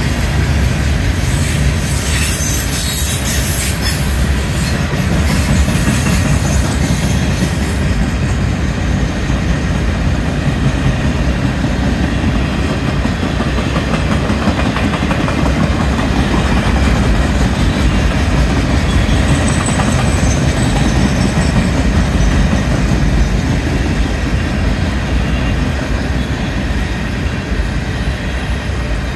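CSX freight train of heavily loaded flatcars rolling past: a steady heavy rumble of steel wheels on the rails with clickety-clack over the rail joints. A high hiss rides over it for the first eight seconds or so, then fades.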